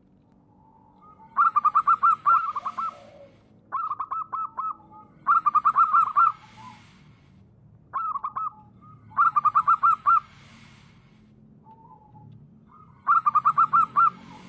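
Zebra dove (perkutut) singing: its staccato cooing song comes in about six bursts of quick, evenly spaced notes, with short pauses between phrases.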